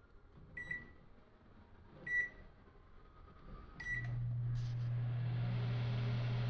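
Microwave oven control panel beeping three times, about a second and a half apart, and on the third beep the 900 W microwave starts: a steady low hum with fan noise that carries on.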